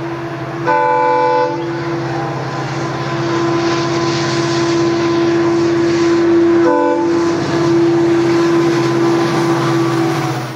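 EMD WDP4D diesel-electric locomotive's 16-cylinder two-stroke engine running steadily under power as it hauls a passenger train past, with its multi-tone horn sounding twice: a blast of about a second near the start and a short toot about seven seconds in.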